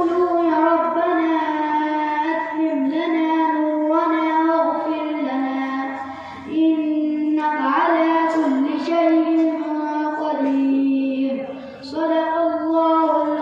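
A boy's voice reciting the Qur'an in the melodic qiraat style, drawing out long held, ornamented notes and breaking off briefly twice, about halfway through and near the end.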